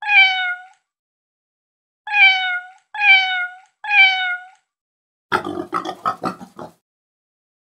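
A cat meowing four times, once and then three times in quick succession, each call sliding slightly down in pitch. These are followed by a quick run of about eight rough animal grunts.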